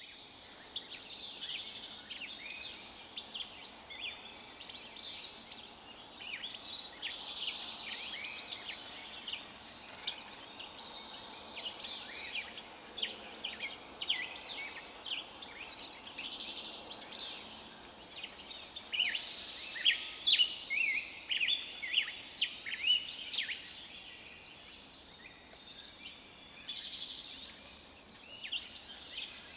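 Many wild songbirds chirping and singing at once: overlapping short, high chirps and trills over a faint steady hiss, with a cluster of louder, sharper chirps about twenty seconds in.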